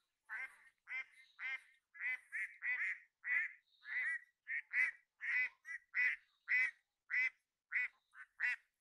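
Domestic ducks quacking over and over, short quacks coming at about two a second.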